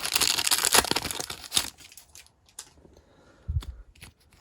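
Foil trading-card booster pack wrapper crinkling as it is handled, dying away after about a second and a half. A few faint clicks and a soft low bump follow.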